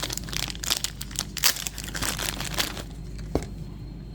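Plastic wrapping crinkling and rustling as a blind-box figure is unwrapped by hand, in quick irregular crackles for the first three seconds or so, then a single small click.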